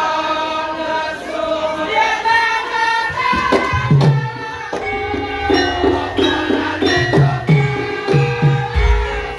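Javanese gamelan music: singing over sustained metallophone tones, then about three seconds in a kendang hand drum enters with regular low strokes and the metallophones play a steady beat.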